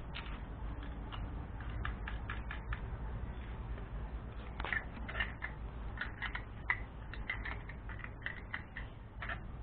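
Irregular light metal clicks and scrapes of a wrench gripping and turning a hand pump's threaded iron pipe, the clicks coming thickest in the second half.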